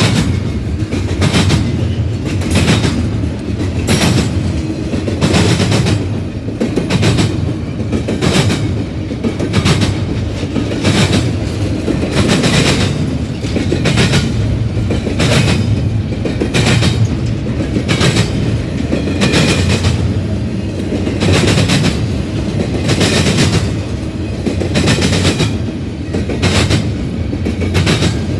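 Double-stack intermodal train of container well cars rolling past close by: a steady rumble of steel wheels on the rails with repeated clacks, one or two a second, as the wheels pass.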